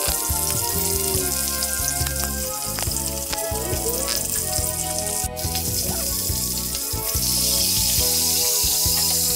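Hot oil sizzling steadily around a whole siakap (Asian sea bass) frying in a pan. The sizzle grows louder about seven seconds in.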